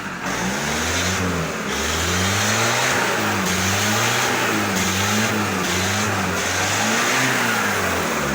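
ZMZ-514 four-cylinder turbo diesel engine revved up and down over and over, its pitch rising and falling about once a second.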